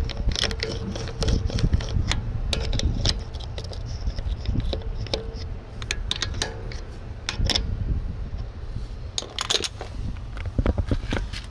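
Irregular metallic clinks and clicks of a steel socket being fitted onto and off the wheel bolts of an alloy car wheel by hand, over a steady low rumble.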